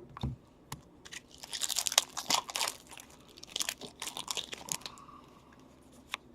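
Foil wrapper of a hockey card pack crinkling as it is torn open, in two spells of about a second or so, with scattered light clicks of cards being handled.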